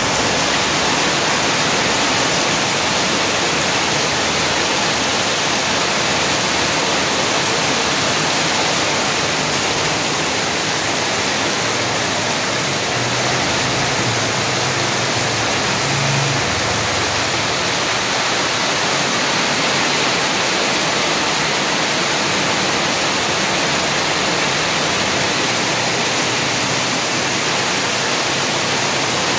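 Heavy rain pouring steadily onto a street, with the low hum of a passing vehicle's engine swelling briefly about halfway through.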